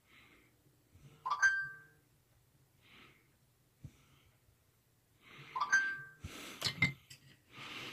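Quiet breathing through the nose: two short breaths with a faint whistle, about a second in and again near six seconds, followed by a few light clicks and rustles of handling near the end.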